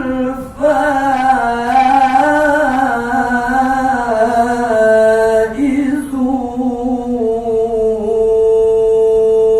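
A man reciting the Quran in melodic tilawah style, drawing out a word in a long ornamented melisma that turns up and down in pitch, then holds one long steady note near the end.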